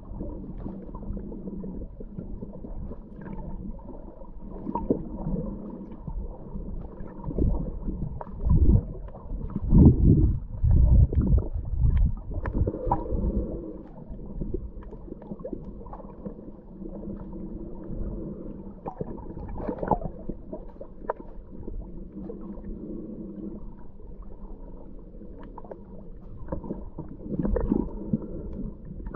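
Muffled underwater sound through an action camera's waterproof housing: a low water rumble with a steady hum beneath it, and louder low gurgling surges about eight to thirteen seconds in.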